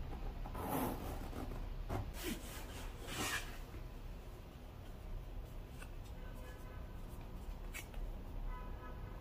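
Hands handling a structured tote bag: soft rubbing and rustling, with a zipper on the inner pocket being pulled open about three seconds in, then a few light clicks as the paper hang tag is handled.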